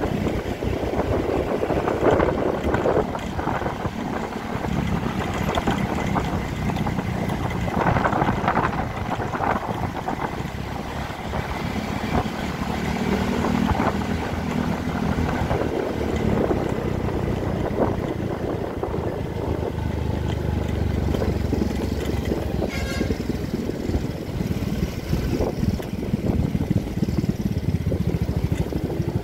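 Wind rushing over a phone microphone on a moving Yamaha scooter, over the scooter's engine and the noise of surrounding traffic. There is a brief high-pitched tone about three quarters of the way through.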